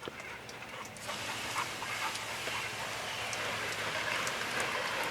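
Water hissing steadily from a hose spraying, swelling about a second in.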